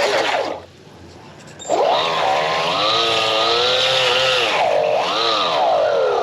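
Brushless motor of an RC boat's propulsion unit whining under changing throttle, its pitch rising and falling. It dies down about half a second in, then spins up again a little over a second later.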